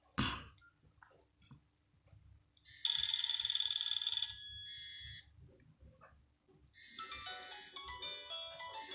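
Nokia N73 ringtones previewing through the phone's loudspeaker. A sharp click comes first, then a loud chord of steady tones about three seconds in that holds for about two seconds. From about seven seconds in, a melody of short notes steps downward.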